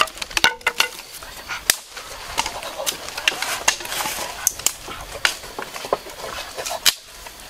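Live mud crabs shifting in a wicker basket, their shells and claws clicking and scraping against the woven cane: scattered sharp clicks, about one or two a second.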